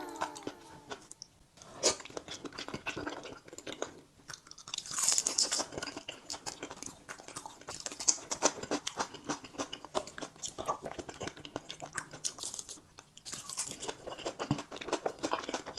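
Close-miked mukbang eating sounds: raw creamy salmon sashimi being chewed, with continuous wet mouth clicks and smacks.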